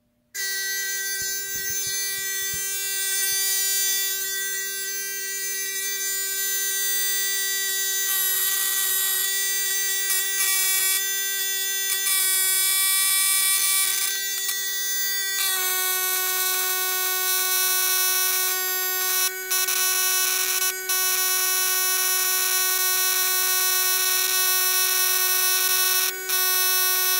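Homemade electro-fishing machine (DIY fish stunner) switching on and running with a steady high-pitched electrical whine and hiss. The pitch steps down slightly about halfway through.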